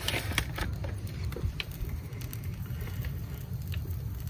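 17-inch Blackstone propane griddle running under a cooking flour tortilla: a steady low burner noise with faint scattered crackles from the hot griddle top.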